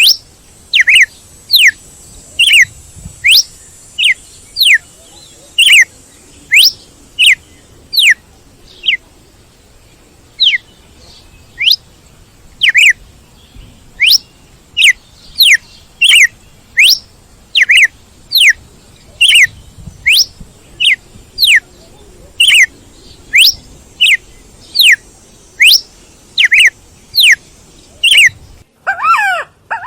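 A bird calling over and over with short, sharp whistled notes, each sweeping steeply down in pitch, about one to two a second. Near the end it cuts to a different, lower, wavering call.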